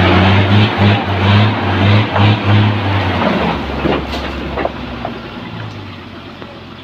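REO 6x6 truck's engine running hard under load, with a heavy throb about three times a second. About three seconds in it drops away and fades, with a few faint clicks.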